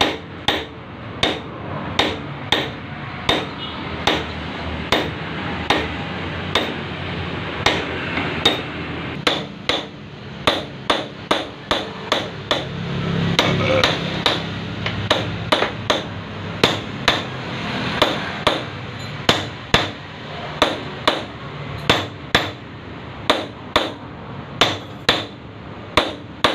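Repeated hammer blows on metal, about one and a half a second and sometimes doubled, each a sharp clank with a short ring, as a ball bearing is tapped onto a turned steel shaft held in a lathe. A steady low hum runs underneath.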